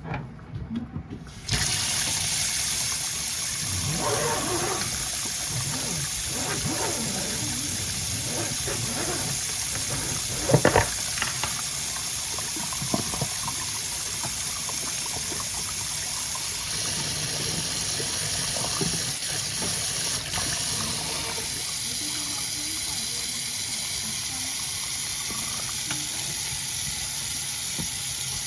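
Water rushing steadily, starting suddenly about a second and a half in, with a few knocks around four seconds and ten seconds in.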